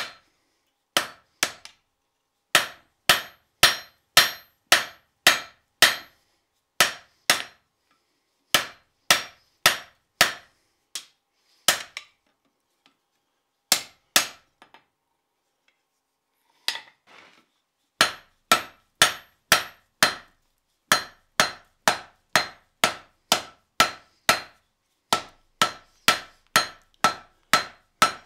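Hand hammer striking red-hot leaf-spring steel on an anvil, about two blows a second, each blow ringing briefly. The blows stop for a few seconds around the middle, with only a couple of strikes, then start again. The blacksmith is shaping the handle of a side chisel, keeping it thick in cross section.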